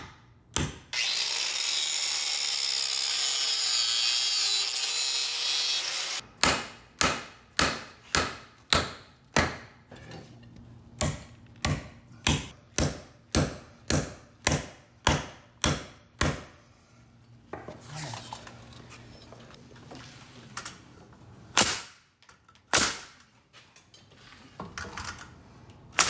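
A masonry drill bores into the concrete slab for about five seconds. Then a small sledge drives split-drive concrete nails through a pressure-treated 2x4 plate into the slab, about twenty sharp blows at about two a second in two runs. Near the end come a few single shots from a pneumatic framing nailer.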